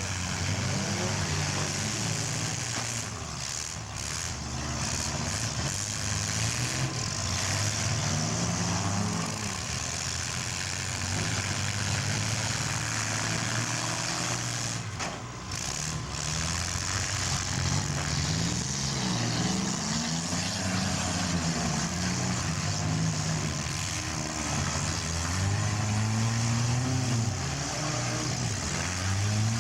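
Several small-car engines running and revving at once during a mini car demolition derby, their pitches rising and falling as the cars accelerate and back off.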